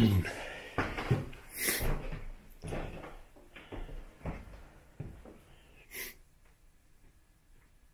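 Footsteps and light knocks on old wooden floorboards, with two brief rustles. The sounds thin out and it is near silent in the last two seconds.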